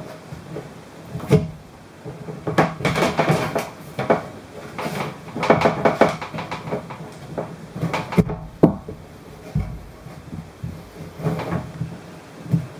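Irregular knocks, rubs and creaks as a hand presses a fish-finder skimmer transducer down into a silicone-filled foam housing inside a kayak hull.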